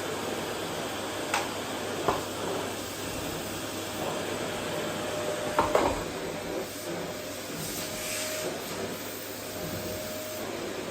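Vacuum cleaner running steadily as it is pushed over a wooden floor, with a faint steady whine under the suction noise. A few short knocks sound through it, the loudest about six seconds in.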